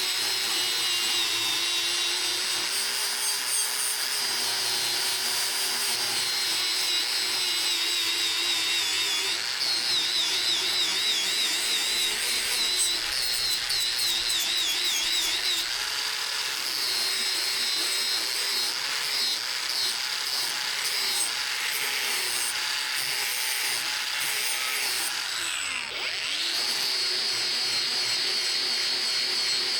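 A small power tool running continuously with a high whine that wavers in pitch as it is loaded, briefly easing off about 26 seconds in.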